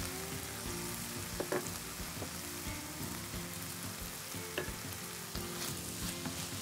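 Ground pork and pancetta sizzling steadily in an enamelled cast-iron pan, with a few sharp knocks from a wooden spoon against the pan.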